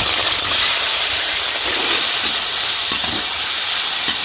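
Country chicken pieces frying in hot sesame oil: a loud, steady sizzle.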